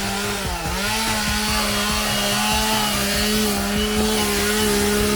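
Chainsaw engine running at high revs. Its pitch sags briefly about half a second in, then holds steady and high.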